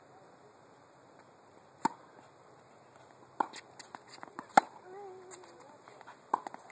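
Tennis ball struck by racquets and bouncing on a hard court during a groundstroke rally: sharp single pops a second or more apart, the loudest about four and a half seconds in as the near player hits a forehand.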